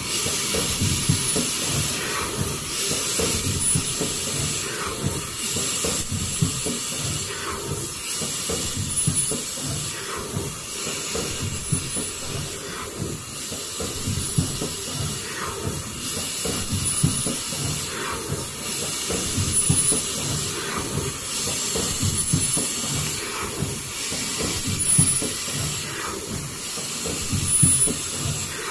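Richpeace automatic foldable KN95 mask production line running: a steady mechanical hiss and rattle, with a short sharp sound repeating about every two and a half seconds as the machine cycles.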